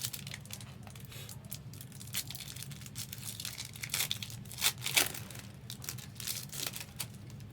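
Foil trading card pack wrappers being torn open and crinkled, in irregular sharp crackles with the loudest tearing about five seconds in.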